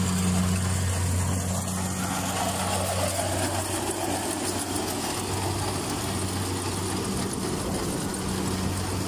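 Kubota DC-68G rice combine harvester running while harvesting: its diesel engine gives a steady low hum, with a constant mechanical hiss from the machine over it.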